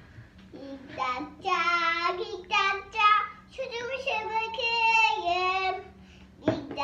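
A young child singing a tune with long held notes, high-pitched, stopping about six seconds in; a short knock just after.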